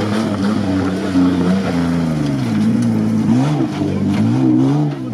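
Mitsubishi L200 pickup's engine revving under load through mud. Its pitch rises and falls with the throttle, dipping sharply twice around the middle, then climbing again.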